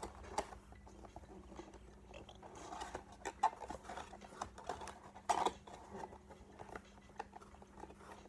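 Scattered small clicks, taps and crinkles of plastic cube accessories and packaging being handled, with one louder knock about five seconds in.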